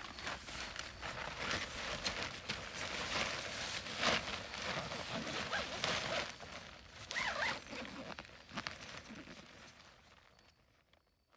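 Irregular rustling, scuffing and footsteps of people moving about and climbing back into a tent, the loudest scuff about four seconds in. The sound fades away near the end.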